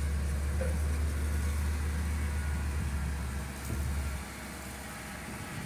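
Diesel engine of a JCB backhoe loader idling with a steady low hum. The hum drops away sharply about four seconds in.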